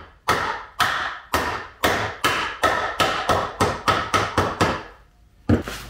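Hammer blows working a wheel's bearings in or out of its hub. About a dozen sharp strikes come quicker and quicker, then after a short pause there is one last blow near the end.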